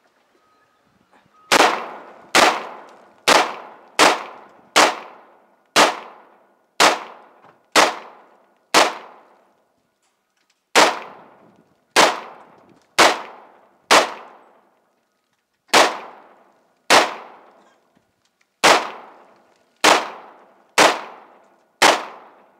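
AR-15 rifle fired in steady semi-automatic single shots, about twenty in all, mostly about a second apart with a short pause near the middle. Each sharp crack trails off in a brief echo.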